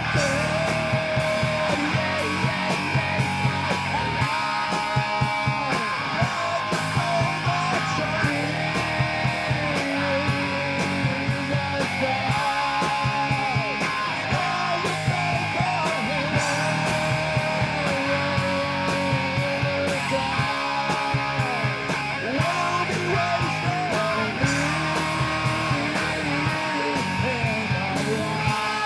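Rock band playing live: guitar lines, some bending in pitch, over bass and a steady drum beat.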